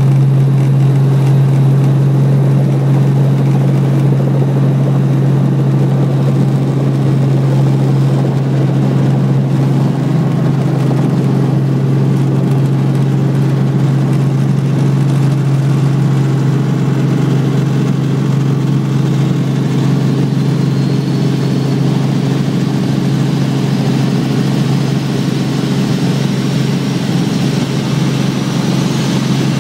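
Robinson R44 Raven helicopter heard from inside the cabin during takeoff and climb-out: its six-cylinder Lycoming piston engine and rotors make a loud, steady drone. A faint high whine rises slowly over the last third.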